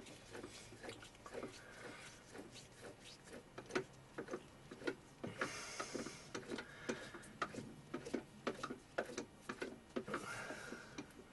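A 4 mm tap being turned by hand in a milling machine's chuck to cut a thread, with irregular clicks and ticks about two or three a second and two short bursts of hiss about five and a half and ten seconds in.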